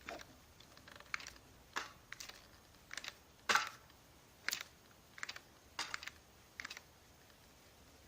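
Lego M110 sniper rifle replica being fired shot after shot: about ten sharp plastic snaps and clacks from its firing mechanism, irregularly spaced half a second to a second apart, stopping about a second before the end.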